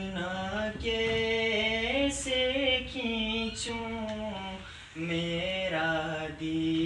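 A young male voice chanting a naat, a devotional poem in praise of the Prophet, unaccompanied, in long held, gliding notes with a short breath about five seconds in.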